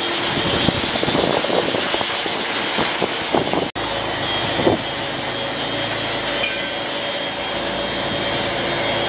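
Electric sander with a vacuum dust extractor running steadily, a whirring rush with a thin high whine, uneven in the first few seconds. It cuts out for an instant about a third of the way through, then goes on steadier.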